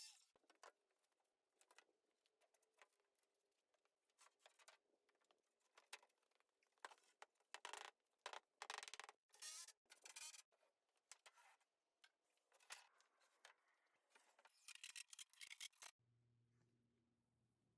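Very faint, irregular scrapes, taps and clicks, then a low steady hum for the last couple of seconds.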